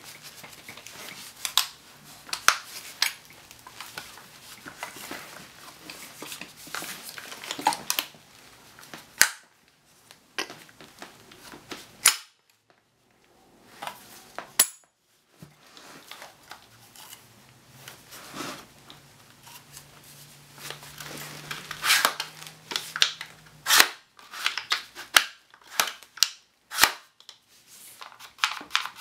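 Irregular sharp clicks and knocks from a G&G CM16 Raider gas blowback airsoft rifle being handled, its plastic body and parts knocking and clicking in the hands.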